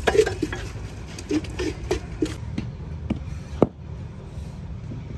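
A metal scoop scraping and slopping through wet cement mix in a pit, a quick run of short scrapes, followed by a few separate sharp knocks, one much louder than the rest. A steady low hum runs underneath.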